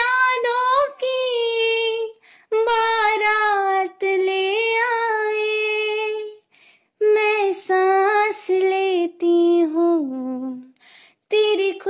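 Female voice singing alone without accompaniment, held notes with ornamented pitch slides, in several long phrases broken by short pauses.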